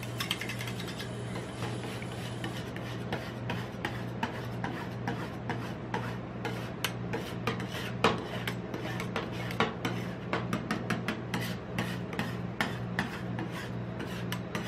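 Two steel spatulas chopping and scraping a freezing Fanta mixture on a rolled-ice-cream cold plate: a rapid, uneven run of sharp metal taps and scrapes against the steel plate, over a steady low hum.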